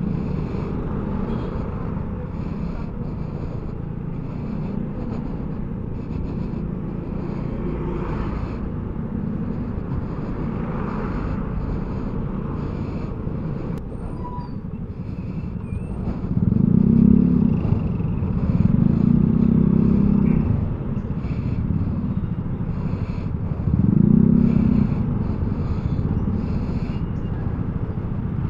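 Riding a Vespa Primavera S 150 scooter in town traffic: steady wind and road rumble, the scooter's automatic engine so quiet that hardly any hum is heard. Three louder low swells of rumble come in the second half.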